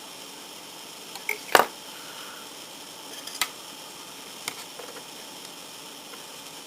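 A few sharp clicks and taps of plastic model kit parts being handled and set down: a pair about a second and a half in, the second the loudest, then two lighter ones, over a steady faint hiss.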